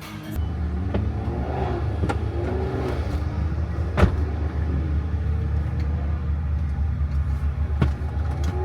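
Car engine running with a steady low rumble, with a few sharp clicks or knocks over it.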